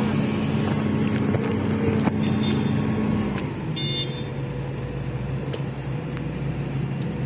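Excavator's diesel engine running steadily. The engine note drops lower about three seconds in, with a few light knocks over it.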